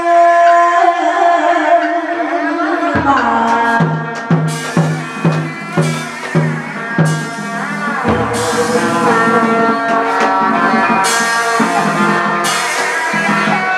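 Hát bội opera music: a held melody with singing, then from about three seconds in steady drum beats about two a second, and bright crashes in the second half.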